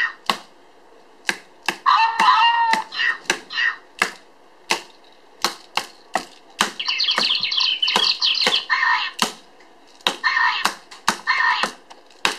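Toy whack-a-mole hammer knocking on the plastic sensor pads of an OOO3 iBase in an uneven string of sharp knocks, a few a second. Between the knocks the base's speaker plays short warbling electronic sound effects, its hit and miss cues.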